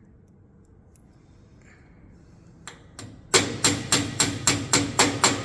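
A hammer striking metal about eight times in quick, even succession, each blow ringing briefly. Two lighter taps come just before the run, which starts a little past halfway.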